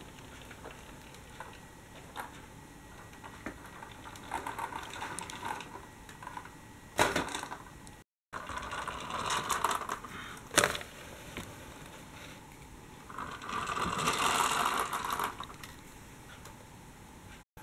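Toy articulated bus and toy tram rolling across a cardboard layout, their plastic wheels and running gear whirring and rattling in several short bursts, with a sharp click about ten seconds in.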